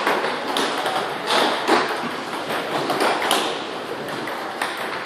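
Table tennis balls clicking against paddles and tables in a quick, irregular series of sharp ticks.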